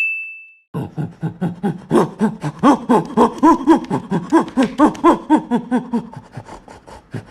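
A short chime, then an animal's rapid run of calls that rise and fall in pitch, about five a second, going on for about six seconds and fading near the end. The calls sound like laughter.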